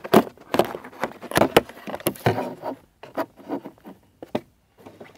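Irregular knocks, taps and rustling of handling close to the microphone inside a car, with short quiet gaps between them.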